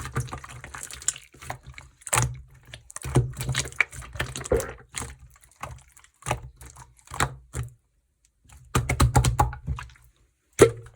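Clear slime being squeezed and poked by hand, making runs of sticky clicks and small wet pops. There is a short pause about eight seconds in and one sharp pop near the end.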